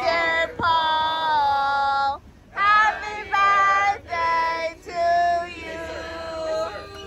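A high voice singing a melody in long held notes, several phrases with short breaks between them.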